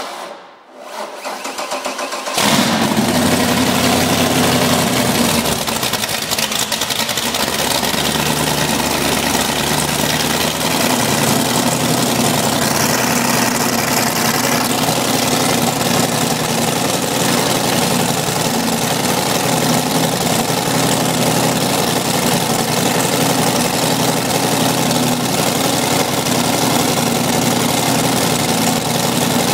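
Mercury Racing 525 hp V8 marine engine on a test stand being started: a couple of seconds of cranking, then it catches and runs loud through open stainless exhaust pipes, its idle shifting for several seconds before settling into a steady idle.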